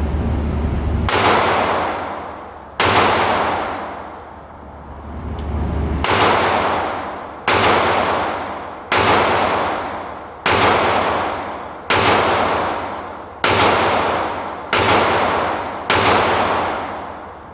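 Sig Sauer P365 9mm pistol firing ten shots: two shots, a pause of about three seconds, then eight more at a steady pace of about one every second and a half, emptying a 10-round magazine.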